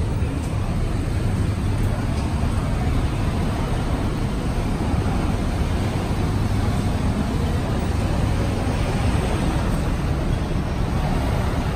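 Steady background noise: a constant low hum with an even hiss over it, like city traffic ambience, with no distinct events.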